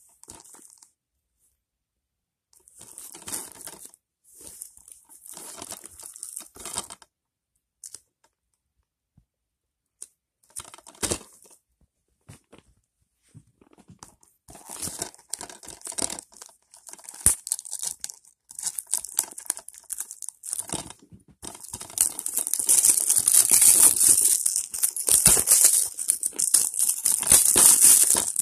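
Clear plastic shrink-wrap being torn and peeled off a DVD case, crinkling in short bursts with quiet gaps at first. From about three-quarters of the way through it turns into loud, continuous crinkling.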